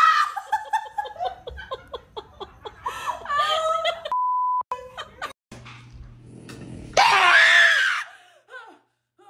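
Women screaming and laughing: a scream at the start gives way to a long run of pulsing laughter, broken by a steady half-second bleep tone about four seconds in. A loud woman's scream comes in at about seven seconds and lasts about a second.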